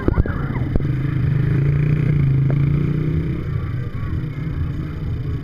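A motor vehicle's engine running, growing louder about a second and a half in and easing off after about three seconds, with a few sharp knocks near the start.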